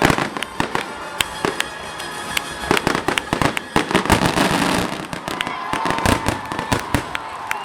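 Fireworks going off in a rapid run of bangs and crackles, densest about halfway through and thinning toward the end.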